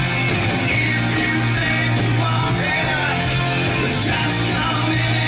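Stage-show music playing at a steady level, with a voice singing over it.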